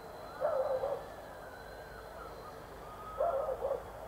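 Dogs barking in alarm at fireworks: two short bursts of several quick barks, about half a second in and again near the end.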